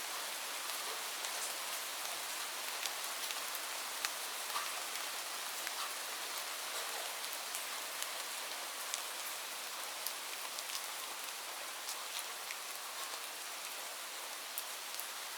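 Light rain falling steadily: an even hiss with many separate drops ticking sharply here and there on a hard surface.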